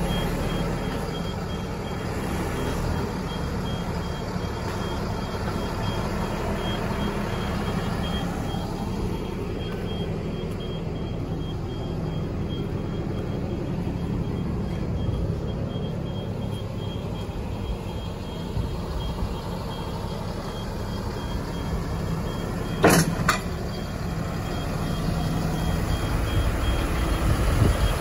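Truck diesel engine running steadily under a high-pitched warning beeper that beeps rapidly throughout. A single sharp knock about 23 seconds in is the loudest sound.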